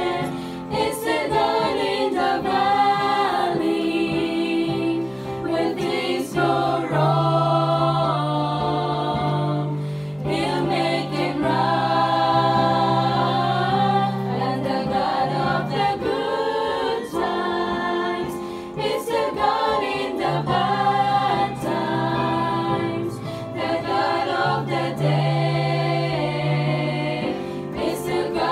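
A group of women singing a gospel song together, over held low notes that change in steps.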